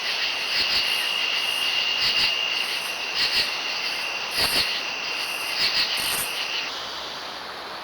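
Insects calling: a steady high trill with a higher pulsing chirp repeating under a second apart, and a few short crackles. About seven seconds in it cuts abruptly to a steady hiss.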